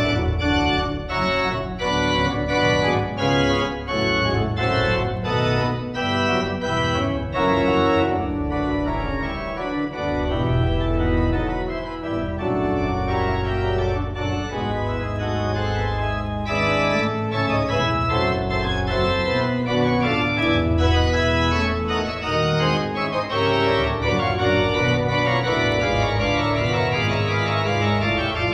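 1940 Möller pipe organ playing a fugue: several lines of notes move against each other over held low pedal notes, loud and steady throughout.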